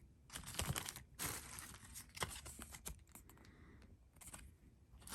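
Paper and packaging rustling and crinkling in the hands, in several short spells broken by small clicks and taps, as items are handled and taken out of a box.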